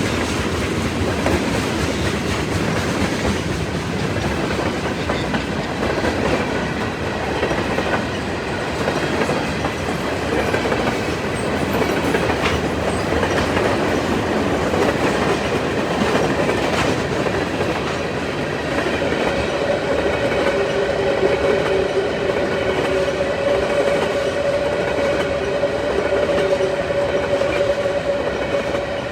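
CN freight train rolling past, with a steady rumble and the clickety-clack of wheels over the rail joints. About two-thirds of the way in, a steady high tone rises over the rumble and holds to the end.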